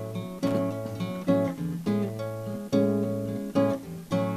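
Solo acoustic guitar playing a song's introduction, chords strummed and plucked in an even rhythm, a new chord struck about every half to one second.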